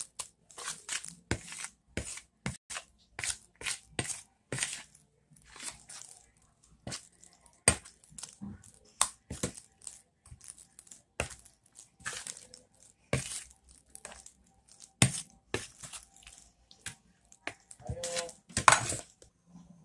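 Metal spoon stirring and scraping a wet ground-pork mixture in a plastic bowl, then a hand kneading it: irregular squelches and scrapes with a few sharper clicks of the spoon against the bowl.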